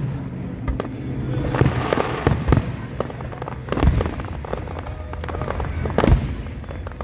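Aerial firework shells bursting in an irregular run of booms and pops, the loudest bang about six seconds in.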